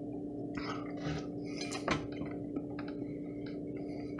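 A man quietly chewing a bite of fried salmon patty, with a single fork clink about two seconds in, over a steady low hum.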